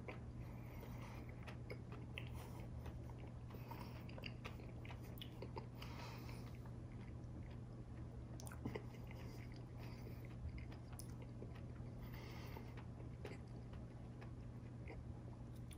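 A person chewing a mouthful of sweet pretzel loaded with candy, nuts and marshmallow toppings, with faint crunching and mouth sounds. A steady low hum runs underneath.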